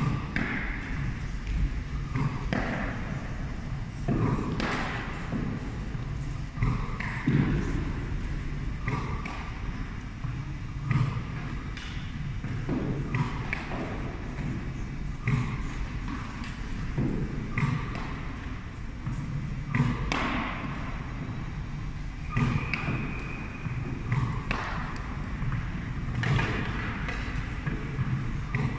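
Tennis balls shot one after another at a hockey goalie, thudding off his pads and stick and bouncing on a wooden gym floor, a thump every two or three seconds in a large hall.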